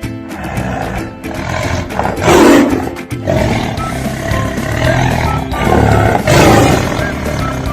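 A large animal roaring twice, about two seconds in and again about six seconds in, over light background music.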